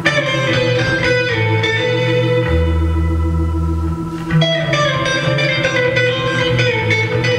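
Instrumental dance music: a plucked melody over a held low drone, thinning briefly a little past halfway before picking up again.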